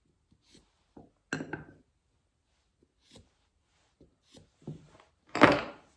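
Hand tools handled on a hardwood block: faint scratches of a pen marking cut lines, with small knocks and clatter as a small metal square and the pen are moved and set down. There is a clatter a little over a second in and a louder knock near the end.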